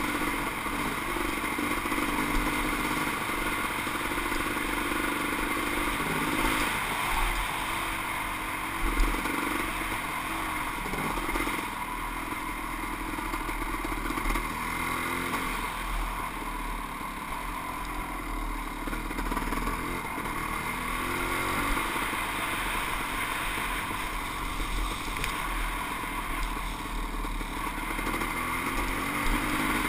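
Kawasaki KX500 two-stroke single-cylinder motocross engine running under way, its pitch rising and falling as the throttle is worked.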